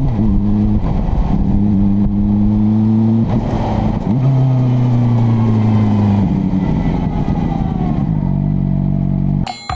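CFMoto 500SR Voom's inline-four engine running loud through its exhaust under way, holding its revs with several brief dips in pitch, then slowly sinking in pitch as the revs drop. Near the end it cuts off abruptly into chiming music.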